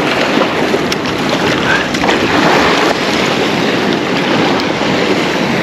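Sea swell washing and breaking against shoreline rocks, a loud, steady rush of water, with wind buffeting the microphone.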